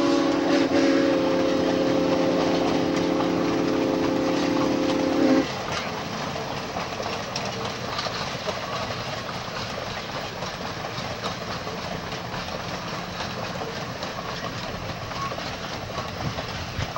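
Steam locomotive AT&SF 3751's whistle sounding a long chord of several notes, cutting off suddenly about five seconds in; then the steady rumble of passenger cars rolling past on the rails.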